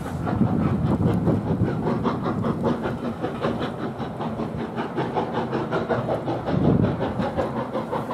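A steam-hauled train running out of sight on the heritage line, with a fast, even rhythmic beat over a low rumble.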